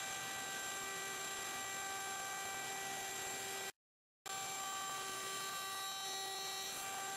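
Router in a router table running at speed: a steady whine over a hiss. It drops out to silence for about half a second a little past halfway.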